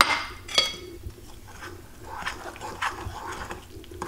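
A metal spoon stirring flour and water into a batter in a bowl, scraping and tapping against the bowl's sides. Two sharp ringing clinks come at the start, about half a second apart.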